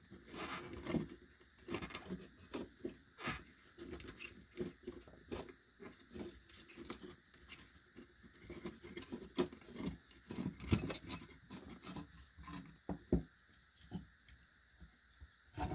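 Irregular small clicks, taps and scrapes of a circuit board and resistor wire leads being handled, as the leads are pushed through the board and bent by hand.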